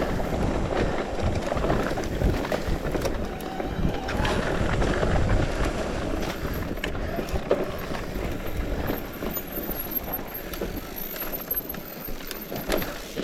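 Mountain bike rolling over a muddy dirt trail: wind buffeting the microphone over the tyre rumble, with scattered knocks and rattles from the bike. The rumble eases somewhat near the end.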